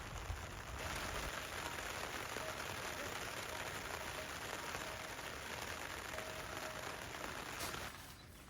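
Light rain falling on a tent, heard from inside as a steady hiss that drops away suddenly near the end.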